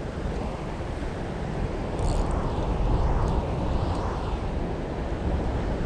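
Steady rush of wind buffeting the microphone and surf washing against the rocks below, with a few faint high ticks two to four seconds in.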